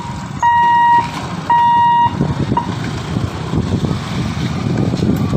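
Level crossing barrier's warning buzzer beeping a steady high tone, about half a second on and half a second off, then stopping a little over two seconds in after a last short blip. Motorcycle and scooter engines then run as they cross the tracks.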